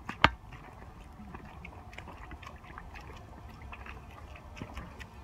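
Footsteps and a walking pole on a stony dirt trail: scattered light clicks and scuffs, with one sharp knock just after the start.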